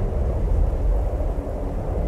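Severe snowstorm wind blowing steadily with a deep rumble. A faint howl rises out of it for a moment about one and a half seconds in.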